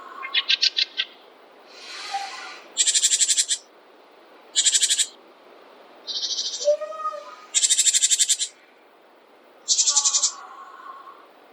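Forest songbirds singing: a series of short, high, rapid trills, one every second or so, with a few fainter, lower calls in between.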